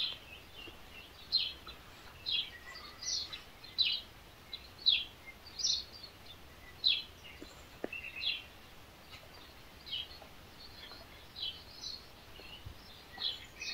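A bird outside chirping over and over: short high calls, roughly one a second, over faint outdoor background noise.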